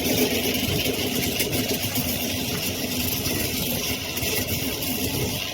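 A motor engine running steadily at idle.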